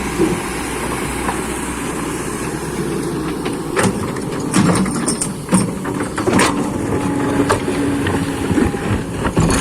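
Excavator's diesel engine running steadily, with a scattering of sharp metallic clanks and knocks from about halfway through.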